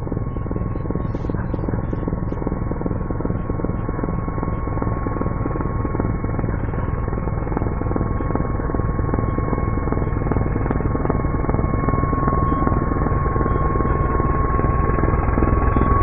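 Mi-26 heavy helicopter's rotor beating with a steady high turbine whine. It grows gradually louder as it approaches, and the whine rises slightly in pitch near the end.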